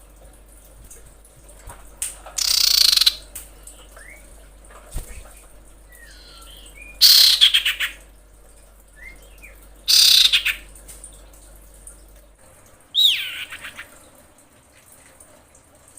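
Female common iora calling in breeding condition, the call a keeper uses to draw in a male. Four loud, rasping calls come a few seconds apart, the second with a fast stutter and the last falling in pitch, with faint short notes between them.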